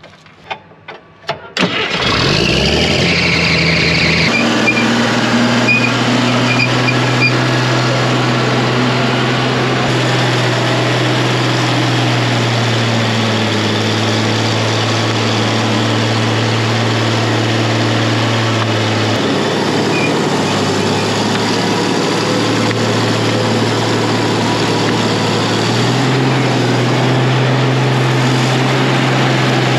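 A few clicks, then a heavy diesel engine starts about two seconds in and runs steadily, its pitch stepping up or down a few times.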